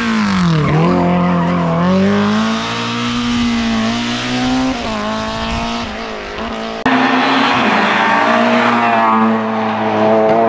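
Rally car engines on a tarmac stage. The first car's engine drops in pitch under braking in the first second, then its revs climb and fall through gear changes. An abrupt cut about seven seconds in brings a second car's engine, held at steadier high revs.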